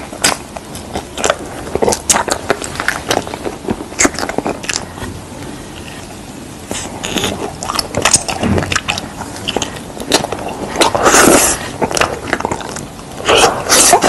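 Close-miked ASMR eating: a string of sharp crunching bites and chewing clicks. The crunching is densest about eleven seconds in and again near the end.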